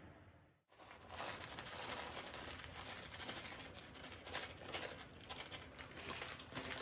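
Plastic bag of grated cheddar crinkling and rustling as the cheese is shaken out onto the pastry, a dense run of crackles that starts suddenly about a second in.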